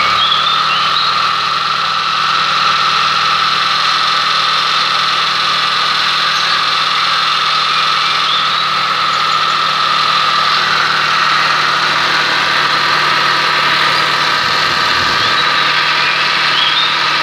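Mitsubishi Lancer's air-conditioning compressor running with the engine idling: a steady, noisy drone with a high whine over it. The uploader takes it for a failed bearing inside the compressor.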